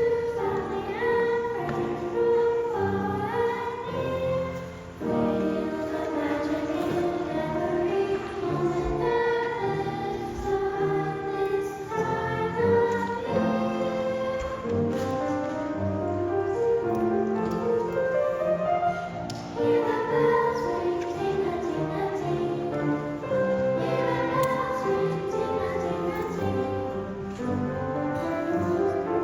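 A girls' choir singing, many voices together in held and moving melodic lines.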